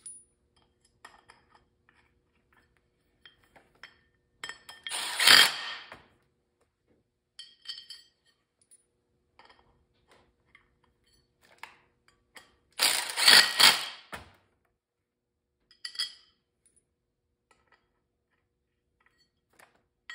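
Cordless power driver running in two short bursts, each about a second and a half, as it tightens the quarter-20 bolts that hold the tower pins on a clutch's movable sheave. Small metal parts clink faintly between the bursts.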